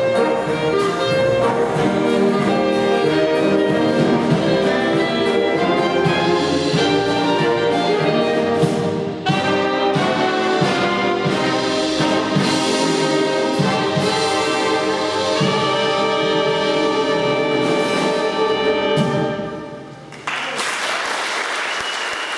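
Concert wind band with brass and clarinets playing the closing bars of a jazz piece, ending on a final chord about nineteen seconds in. About a second later the audience breaks into applause.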